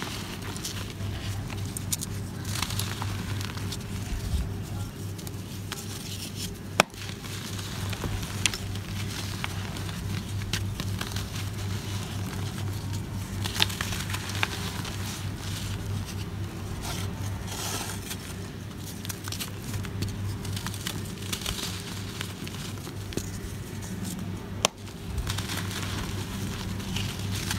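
Dry, crumbly lumps of earthen floor material crushed and crumbled between bare hands: fine, crunchy crackling with trickling crumbs and grit, in repeated handfuls. A low steady hum runs underneath. Two sharp clicks stand out, about seven seconds in and near the end.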